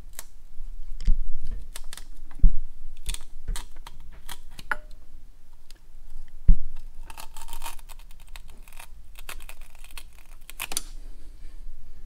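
A metal pick scraping and clicking against old exhaust gaskets in a Harley-Davidson Twin Cam's cylinder-head exhaust ports, in irregular scratches and taps with a few heavier knocks. The gaskets are stuck fast to the heads after 20,000-plus miles, and they are resisting removal.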